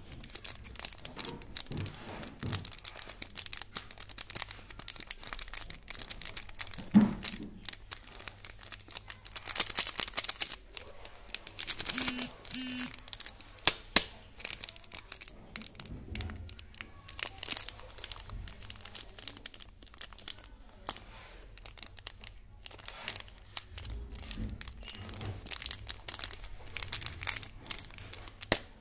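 Small plastic candy wrappers crinkling as fingers handle and turn the packets: irregular crackling with a few sharper snaps, the sharpest about halfway through.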